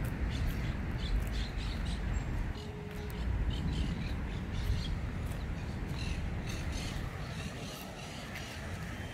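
Birds calling outdoors in short, scattered calls over a steady low rumble of distant road traffic.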